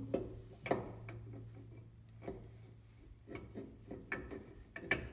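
Toyota solid front axle shaft being slid and worked into the axle housing: scattered light metal knocks and scrapes, about half a dozen, as it fights its way in and does not yet go home. A steady low hum runs underneath.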